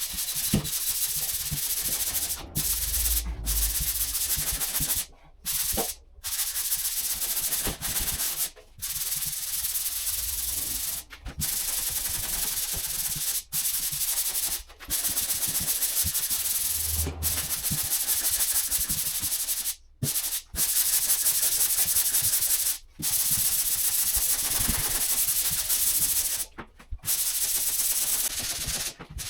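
240-grit sandpaper rubbing over dried plaster filler on a plasterboard wall repair: a steady scratchy hiss broken by brief pauses.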